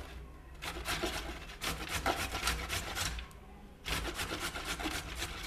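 Carrot being grated by hand on a metal box grater: runs of quick rasping strokes, broken by two short pauses, one just after the start and one a little past three seconds.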